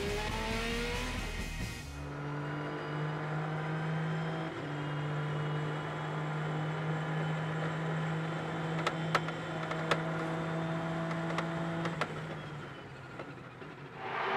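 Race car engine heard from onboard, holding a steady pitch, with a few sharp clicks; it fades near the end.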